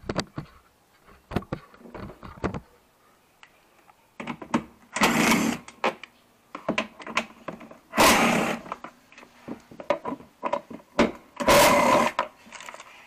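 Cordless drill-driver with a socket bit running in three bursts, each about a second long, backing out the bolts that hold a scooter's plastic under-seat storage box. Light clicks and knocks of handling come between the bursts.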